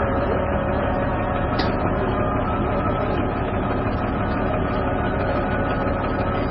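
Heavy cattle truck's engine running steadily.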